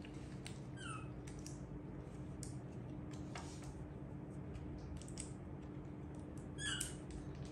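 Small plastic yogurt cup and spoon being handled, giving soft scattered clicks and ticks over a faint steady hum. Two short high squeaks from a baby monkey, one about a second in and one near the end.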